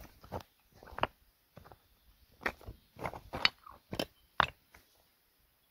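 Footsteps on loose flat stone fragments, with irregular knocks and scrapes as the stones shift and clack together underfoot, the loudest a little past the middle.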